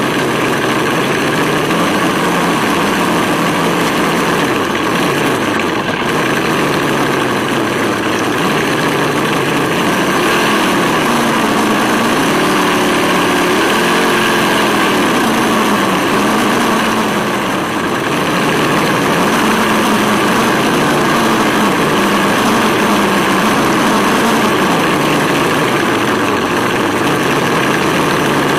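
Engine sound simulator (Sense Innovations ESS-One) on an RC scale buggy, playing a V8 engine sound through its small onboard speaker. It runs steadily, and its pitch rises and falls with the throttle in the middle stretch.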